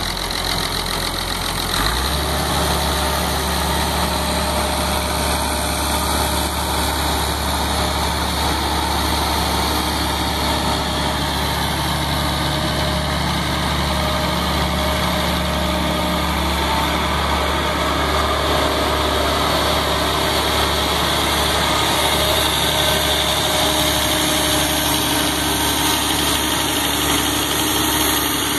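Allis-Chalmers 2900 six-cylinder diesel engine of an Allis-Chalmers 190XT tractor running steadily at idle. Its speed steps up slightly about two seconds in, then holds.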